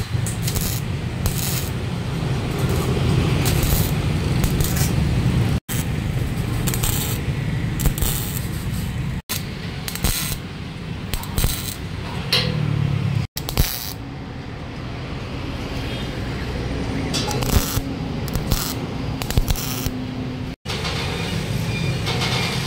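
Electric welding on galvanized steel box tubing: a crackling, sputtering arc with sharp metallic clinks and taps, in several stretches broken by abrupt cuts.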